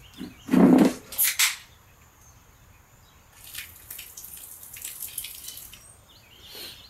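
A thump about half a second in, then beer being poured out of a can and splashing onto the ground, a hissing, dripping pour that lasts a couple of seconds.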